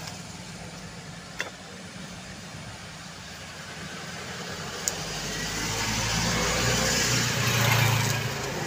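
A motor vehicle engine running with a steady low hum, growing louder from about halfway through and peaking near the end. Two short sharp clicks stand out, one early and one about five seconds in.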